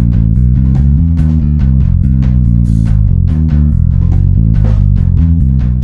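Background music with a steady drum beat over a stepping bass line.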